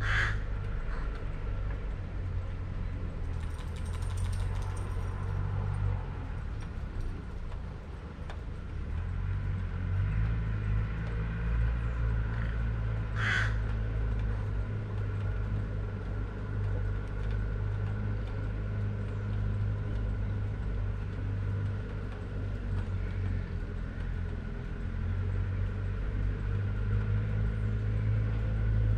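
Low rumble of distant thunder rolling on and off, swelling and easing over several seconds. A crow caws once at the start and once more about halfway through.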